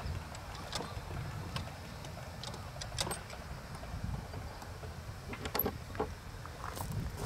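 Scattered light metallic clicks and clinks as a hand works the coupler between a wooden riding car and a small live-steam locomotive's tender, over a low steady rumble.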